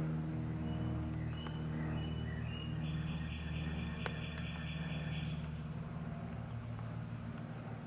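A steady low machine hum, with birds chirping high over it and a rapid pulsing trill starting about three seconds in and lasting a couple of seconds.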